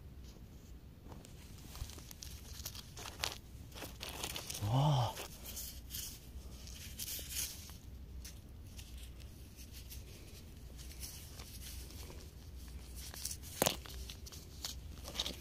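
Gloved hand picking up and handling a stone on desert gravel: scattered crunches and small clicks of pebbles with rustling of the glove fabric, and one sharper click near the end.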